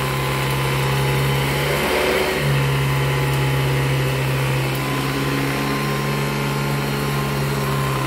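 Hoover Decade 80 upright vacuum cleaner running steadily on carpet: a strong motor hum with a fine rattling vibration from the brushroll, which the owner puts down to brushroll bearings worn by carpet-freshener powder. The hum wavers briefly about two seconds in.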